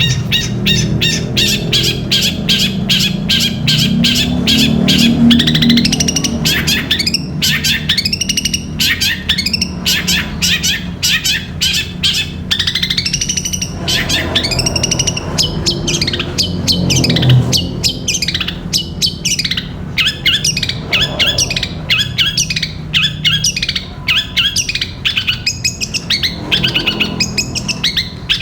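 Long-tailed shrike (cendet) singing a long, very fast chattering song of rapid short notes and quick arching whistles, in the 'gereja petir' style that mimics the chatter of the Eurasian tree sparrow.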